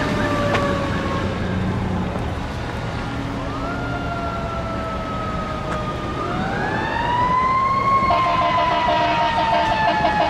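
Ambulance siren on a slow wail: the pitch rises twice and falls off slowly, growing louder as the ambulance approaches. A faster pulsing tone joins underneath near the end.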